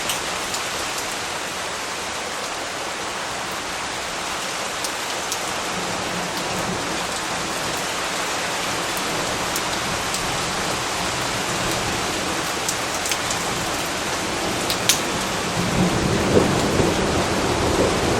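Steady heavy rain hissing, with scattered sharp drops. A low rumble of thunder builds and grows loudest in the last few seconds.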